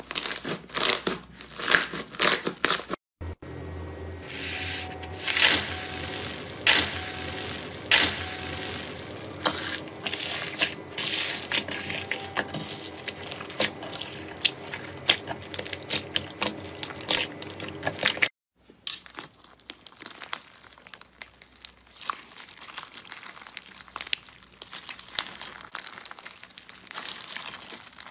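Hands squeezing, stretching and kneading slime: a run of sticky crackles, pops and squelches. In the last part a clear slime full of blue plastic pieces gives a denser, finer crunchy crinkling.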